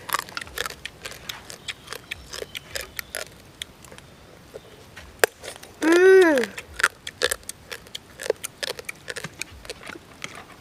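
Close-up eating of boiled crab: many small irregular clicks and smacks of shell cracking, chewing and lips. About six seconds in there is one short hummed 'mmm' that rises and falls in pitch.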